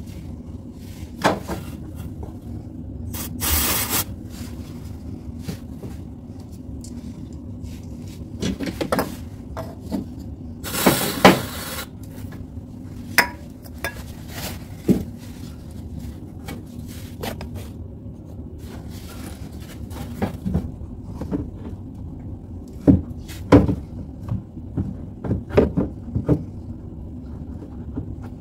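Scattered clinks, knocks and rubbing of hard objects being handled, with two longer scraping passes (one about 3 seconds in, a louder one about 11 seconds in), over a steady low hum.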